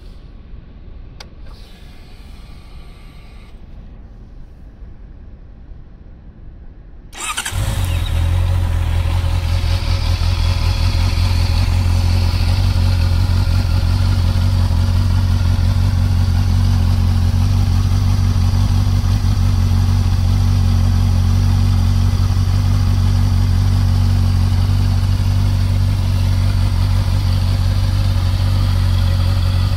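Honda CB650R's 649 cc inline-four engine being started about seven seconds in: it catches at once and settles into a steady idle.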